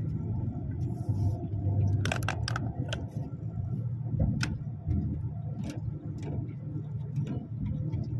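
Truck engine running low and steady, heard from inside the cab as the truck rolls slowly forward, with scattered sharp clicks and rattles from about two seconds in.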